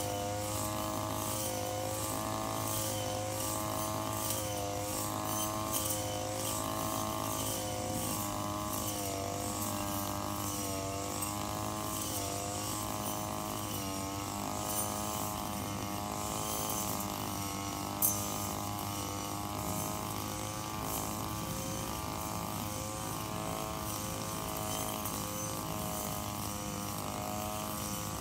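Engine-powered brush cutter running as it cuts tall grass, its engine note wavering up and down as the cutting head meets and clears the grass. One sharp click about two-thirds of the way through.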